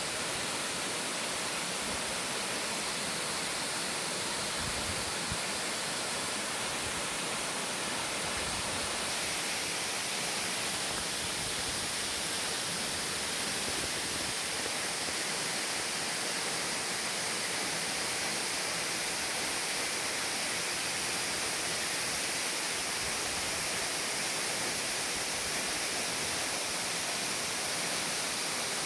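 Steady rushing hiss of a tall, free-falling waterfall: an even wash of falling water without a break.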